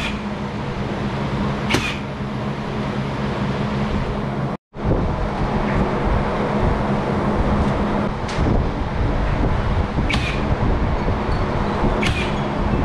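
Cordless nail gun firing brad nails into wooden trim, several single sharp shots at uneven intervals, over a steady background hum.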